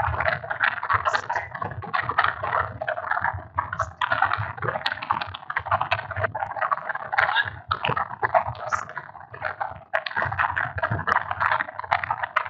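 A man's voice lecturing, with short pauses, sounding thin and crackly.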